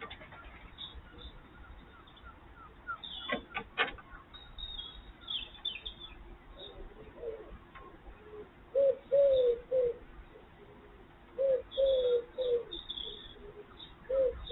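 A dove cooing in repeated three-note phrases, the middle note the longest, with small birds chirping high above it. A few sharp clicks come about three to four seconds in.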